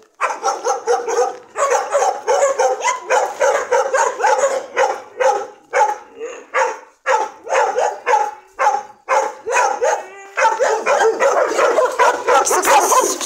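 Several dogs barking continuously in a loud, overlapping chorus, with short lulls about seven and ten seconds in.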